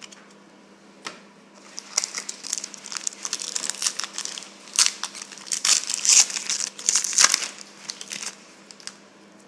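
Crinkling and tearing of a trading-card pack wrapper as a pack of Panini Certified basketball cards is ripped open. It is dense crackly rustle from about two seconds in to near the end, and a faint steady hum sits underneath.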